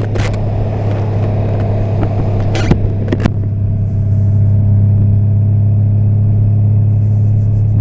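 2014 Honda Valkyrie's 1832cc flat-six engine running steadily under way, a constant low hum with wind rush over the rider's microphone. A few sharp clicks in the first three and a half seconds, and the sound grows a little louder about four seconds in.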